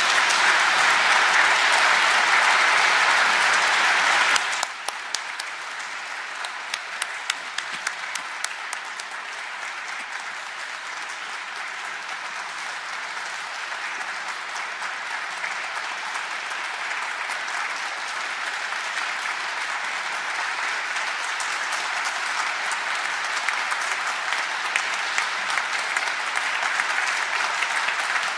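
A large congregation applauding in a big stone church, a dense steady clapping. About four and a half seconds in it drops suddenly in level, then carries on more quietly with single claps standing out, slowly growing louder again.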